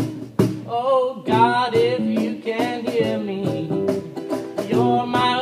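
Live acoustic guitars strumming a song, with a singing voice carrying a wavering melody from about a second in.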